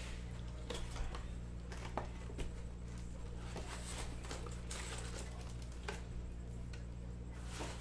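Trading-card packs and their box being handled and torn open: scattered crinkles, rustles and light clicks over a steady low hum.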